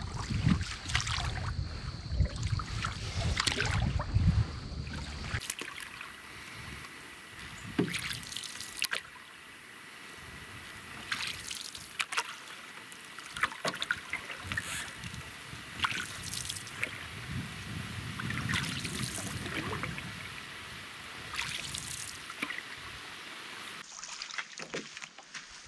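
Canoe paddling: paddle strokes in the lake water with water trickling and dripping, marked by scattered sharp splashes. The first five seconds carry a louder low rumble that cuts off suddenly.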